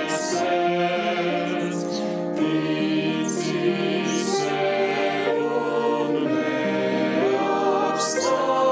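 A choir of girls' and young people's voices singing a Latvian song together, several voice parts sounding at once on held notes.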